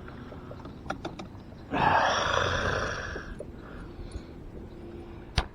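A man's strained, breathy exhale lasting about a second and a half, as he works a fishing hook out of his own hand. A few small clicks come before it and a sharp click comes near the end.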